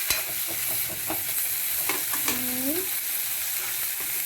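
Onion, green chillies and ginger-garlic paste sizzling as they fry in hot oil, with a utensil clicking and scraping against the pan as they are stirred.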